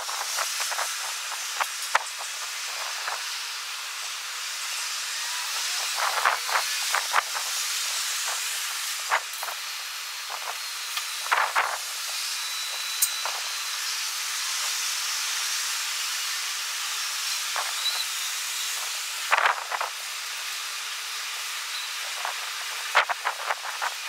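Strong wind on the microphone, sped up to a steady high hiss and broken every few seconds by short gusty bursts.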